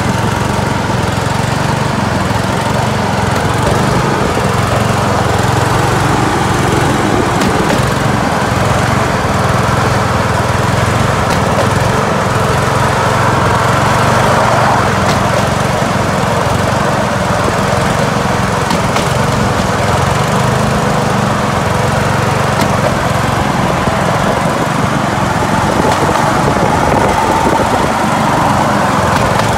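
Small engine of a motorized rail skate (a light trolley on railway tracks) running steadily as it travels along the rails.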